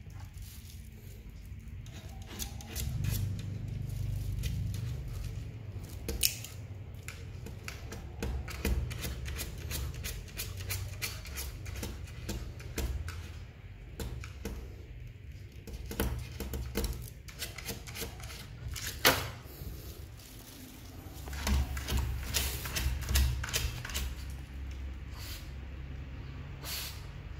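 A small dog's claws clicking and tapping irregularly on a hard floor as it moves about, over low rubbing rumble from the phone being handled close by, with a few sharper knocks.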